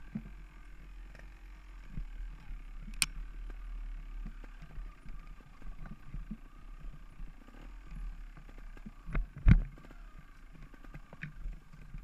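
Mountain bike rolling down a rough dirt and stone trail: tyre noise with irregular knocks and rattles as the bike goes over bumps, a sharp click about three seconds in and a loud thump a little past the middle.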